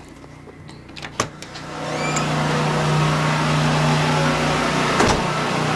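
A click, then a steady engine or motor hum with a rushing noise that swells up about two seconds in and holds steady.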